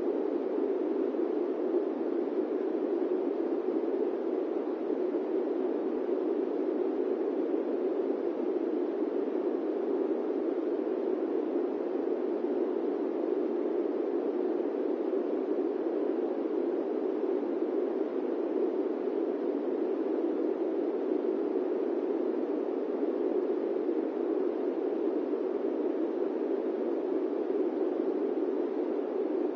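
Electric fan running with a steady, even whoosh, deepest in the low-middle range, with no changes or clicks.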